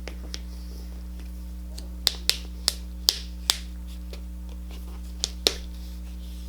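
A plastic slime container's lid being pried open: a series of short sharp plastic clicks, five in quick succession a couple of seconds in and two more later, over a steady electrical hum.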